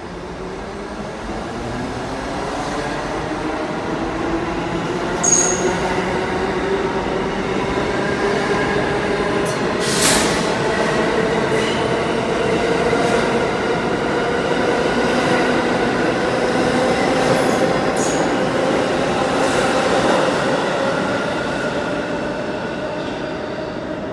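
R68 subway train accelerating out of the station: traction motors whining with a slowly rising pitch over wheel rumble, with a few sharp clicks along the way. The sound fades over the last few seconds as the last car pulls away down the tunnel.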